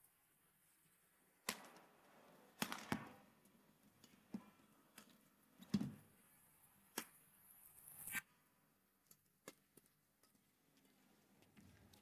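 Badminton rally: a string of sharp racket-on-shuttlecock hits, roughly a second apart, with a heavier thump just before six seconds in as a player dives onto the court floor.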